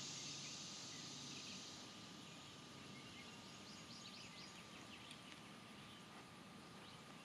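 Faint outdoor ambience with a steady high buzz that stops about two seconds in, then a quick run of short, high bird chirps in the middle.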